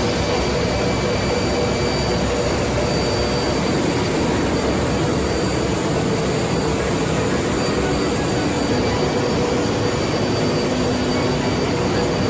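Log-processing machinery running steadily and loudly, an even noise with a constant drone, unbroken throughout.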